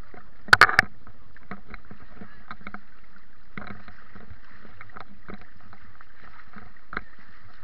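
Small waves lapping and sloshing against a camera floating at the lake surface, with scattered light clicks. There is a cluster of three sharp knocks about half a second in and a single lighter knock near the end.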